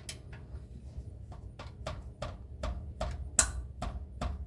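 Half-inch ratchet clicking in a regular run of single sharp clicks, about three a second, as it is worked on a very tight oil pan drain plug.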